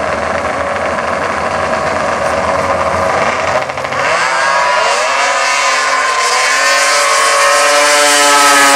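Two drag-racing snowmobiles running at the start line, then launching about four seconds in. Their engines climb steeply in pitch and hold a high, loud whine at full throttle.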